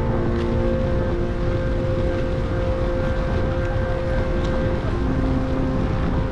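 Heavy wind rumble on the microphone of a camera riding along on a bicycle, under background music of long held notes.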